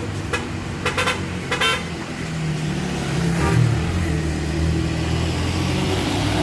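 A tour bus's diesel engine running as it climbs, with a quick series of short horn toots in the first two seconds.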